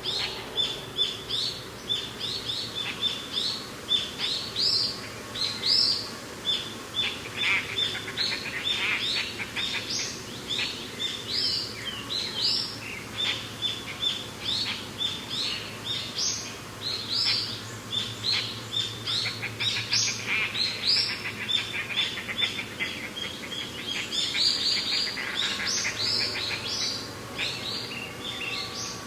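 Songbirds chirping without pause: a dense run of short, high, repeated calls, many of them rising quickly in pitch.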